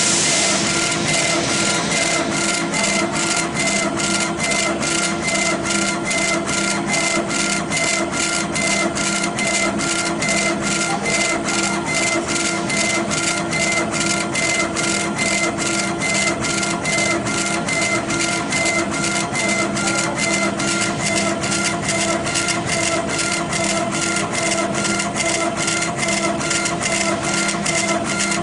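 Laser engraving machine raster-engraving a stone slab: the laser head sweeps back and forth in a regular beat of short whirring strokes, about two a second, over a steady machine hum with several held tones.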